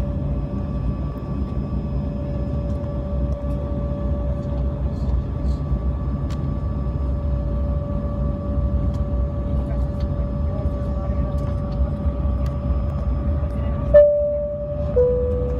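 Inside the cabin of a taxiing jet airliner: a steady low engine rumble with a constant whine. About 14 s in the rumble briefly drops and a short two-note tone sounds, the second note lower.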